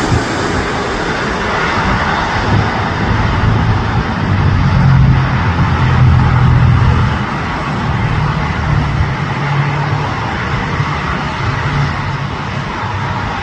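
Jet engines of a KLM Boeing 777-200ER, its GE90 turbofans, running as the airliner lands: a steady rushing noise with a low hum that swells about four to seven seconds in, then eases slightly.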